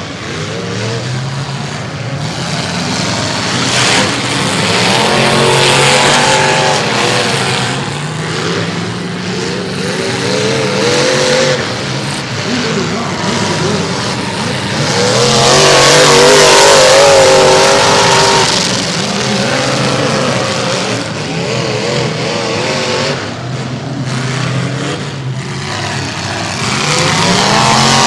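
Several demolition-derby cars racing on a figure-8 track, their engines revving up and down as they pass close by in waves, loudest around the middle and again near the end.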